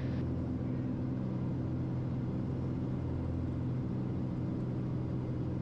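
Piper Malibu's piston engine and propeller droning steadily in cockpit, with the prop set full forward and power set for the landing pattern.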